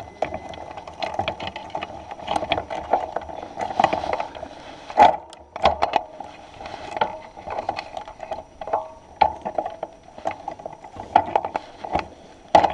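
Mountain bike ticking and rattling: many irregular sharp clicks and knocks over a steady muffled rushing.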